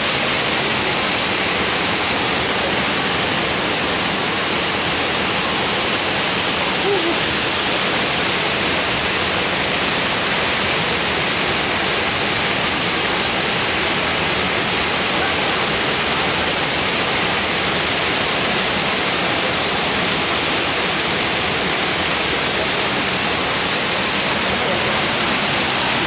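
Düden Waterfall pouring into the river below: a loud, unbroken rush of falling water that holds steady throughout.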